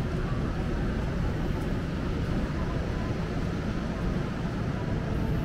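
Steady low rumble of city street noise, with no single sound standing out.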